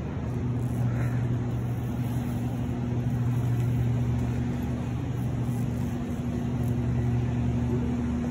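Steady low machine hum over a constant background hiss.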